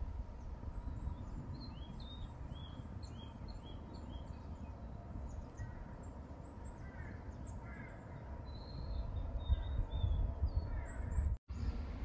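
Birds chirping with many short, quick high notes over a steady low rumble of wind on the microphone.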